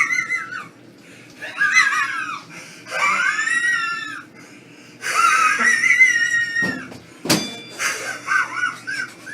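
Exaggerated wheezing laugh: a string of long, high-pitched, wavering wheezes about a second apart. It sounds like a dying horse. A sharp thump comes about seven seconds in.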